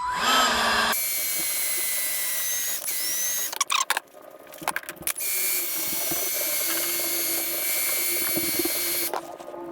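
Ryobi cordless heat gun running in two steady whirring runs, the first about three and a half seconds and the second about four seconds, with a short break and a few clicks between them, shrinking heat-shrink tubing over a crimped spade terminal.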